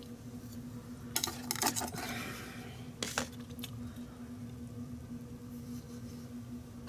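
A few light clinks and scrapes of a utensil on a metal sheet pan as baked biscuits are lifted off it, clustered about a second in and again around three seconds, over a steady low hum.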